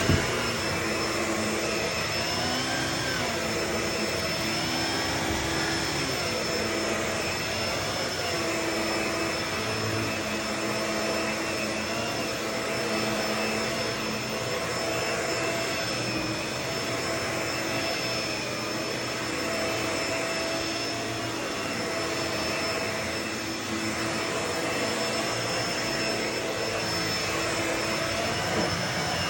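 Vacuum cleaner running steadily, a constant rushing noise with a steady motor whine; the low hum wavers in pitch a few times in the first several seconds.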